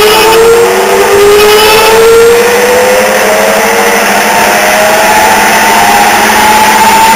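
Turret lathe running under power from its 2 hp Brook electric motor through V-belts, a loud mechanical whine that climbs slowly in pitch as the drive gathers speed, over a steady hum. The motor is undersized for the lathe and labours under the load.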